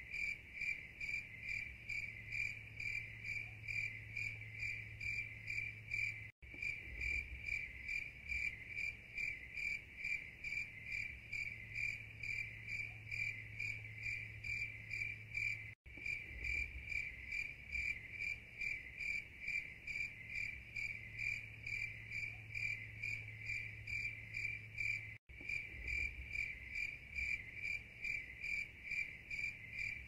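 Crickets chirping in a steady, even rhythm of high-pitched pulses, with three momentary dropouts to silence spaced about nine seconds apart.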